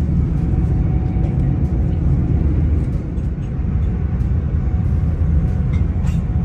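Passenger train running, heard from inside the carriage: a steady low rumble with faint clicks over it.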